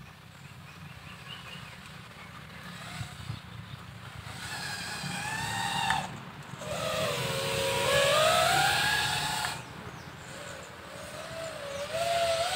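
5-inch FPV freestyle quadcopter's motors and propellers whining in flight, the pitch gliding up and down as the throttle changes. It is louder in the middle and again near the end.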